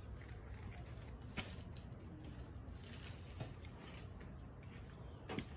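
Faint handling noise: a few sharp clicks and knocks as objects are picked up and set down while boxes of old household items are sorted, over a steady low hum.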